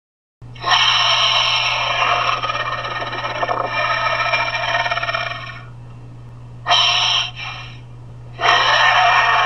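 Homemade dinosaur call sound effect: an altered human voice made to sound like a creature. One long loud call lasts about five seconds, a short call follows near the seventh second, and another long call starts about a second before the end, all over a steady low hum.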